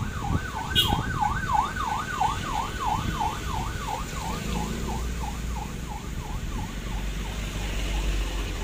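Ambulance's electronic siren sounding a fast yelp, about three up-and-down sweeps a second, fading steadily as the ambulance passes and drives away, until it dies out near the end. Underneath is a low rumble of passing vehicle engines.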